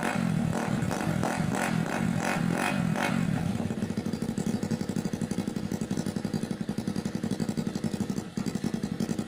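Motorcycle engine running through a homemade chicken-pipe exhaust: revving for about three seconds, then settling into a steady idle with a rapid, even exhaust putter. It dips briefly about eight seconds in.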